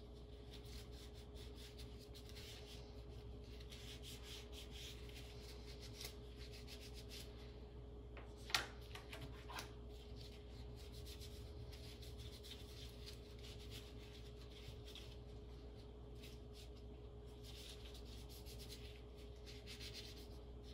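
Faint, steady rubbing of nitrile-gloved fingers wiping a spatula with an alcohol prep pad to sanitize it, over a low steady hum, with one sharp click about eight and a half seconds in.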